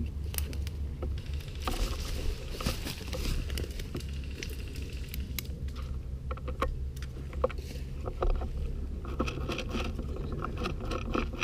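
Footsteps crunching and rustling through dry brush and twigs, with scattered sharp crackles and a steady low rumble on the body-worn microphone.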